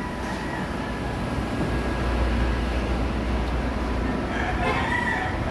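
Steady machine-shop noise: a low mechanical hum that swells for a couple of seconds in the middle, with faint voices in the background near the end.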